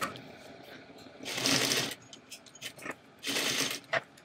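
Domestic sewing machine stitching through layered fabric in two short runs, one about a second in and another about two seconds later, edge stitching a patch pocket onto a bag panel. Faint clicks of fabric handling fall between the runs.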